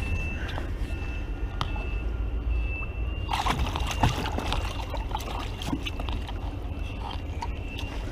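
Water sloshing and splashing around a small fishing boat, starting about three seconds in, over a steady low rumble. A faint, high, repeated beep sounds through the first few seconds.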